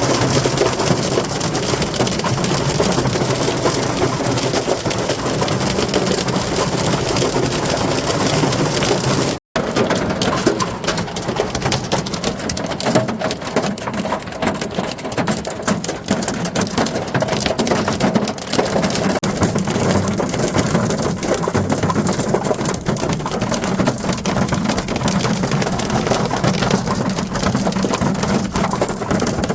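Hailstones pelting down on a surface: a dense, continuous clatter of many small hard impacts. The sound drops out for an instant about nine seconds in, then carries on.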